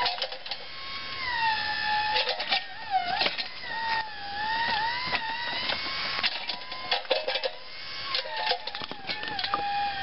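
Battery-powered backhoe's electric motor and hydraulic pump whining. The pitch dips and recovers several times as the boom and bucket dig under load. Short clicks and knocks from the digging and the control levers run through it.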